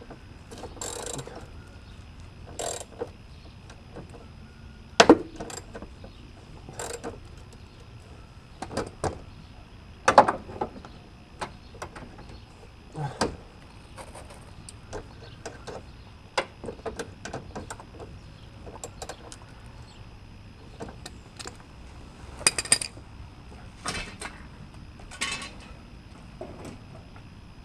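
Hand tools and metal parts clanking and clicking at irregular intervals during work on a car's radiator and its mounts, with the loudest knocks about 5 and 10 seconds in and a quick cluster near the end, over a faint steady hum.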